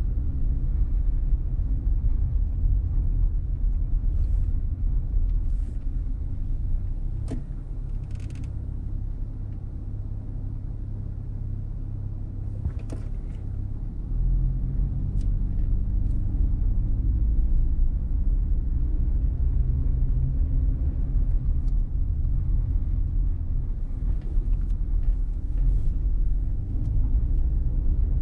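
Low, steady rumble of a car being driven slowly, the road and engine noise heard from the moving car. It softens for several seconds midway and then picks up again, with a few faint ticks.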